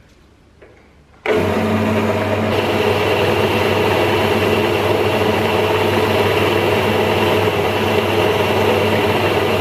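Metal lathe switched on about a second in, then running steadily at low spindle speed with a constant motor hum and whir while a strip of paper is held against the spinning workpiece to polish its finish.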